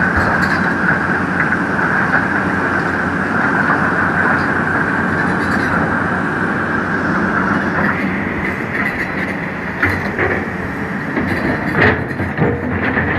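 Hydraulic excavators cutting a road into rock: steady diesel engine and hydraulic whine, with a few sharp knocks near the end.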